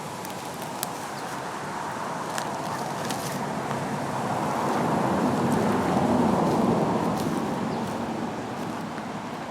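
A passing vehicle's tyre and road noise swells to a peak about six seconds in, then fades away, with a few faint footstep clicks early on.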